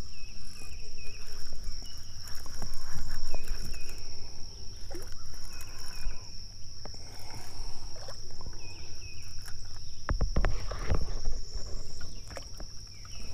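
Insects droning steadily at one high pitch, with short repeated bird chirps in the first half. Near the end, a hooked sunfish splashes at the water's surface.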